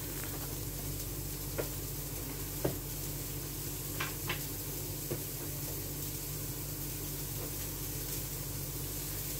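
Beef hamburger patty frying, a steady sizzle with a few faint clicks in the first half.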